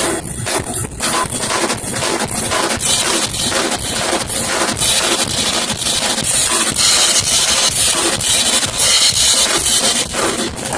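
Drum kit played fast, a dense run of snare and bass drum hits, with cymbals washing over the hits from about halfway through until near the end.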